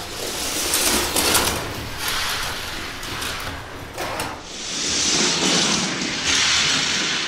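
Hot Wheels die-cast cars racing down plastic track: a continuous rolling whir and rattle of small wheels, with a few sharp clicks about a second in. About four and a half seconds in the sound turns to a higher, brighter hiss as the cars run onto the wider grey track.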